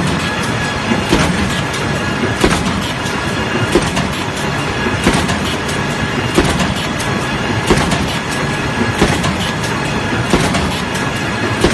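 Green veneer peeling line with a spindleless veneer lathe running: a dense, steady machine clatter with a sharp knock repeating evenly about every second and a quarter.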